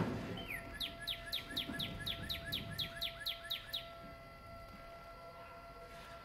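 A knock right at the start. Then a songbird sings a rapid run of about a dozen down-slurred whistled notes, roughly four a second, each with a short upturn at the end, stopping just before the four-second mark. A faint steady hum runs underneath.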